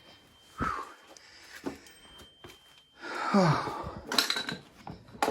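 Metal tools and engine parts being handled: scattered light clinks and knocks, then sharper metallic clanks with a brief ring about four seconds in. Just before the clanks there is a short vocal sound that falls in pitch, like a grunt.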